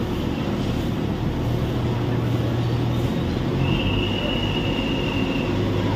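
Heavy construction machinery engine running steadily, with a low hum. About three and a half seconds in, a steady high-pitched tone sounds for about two seconds.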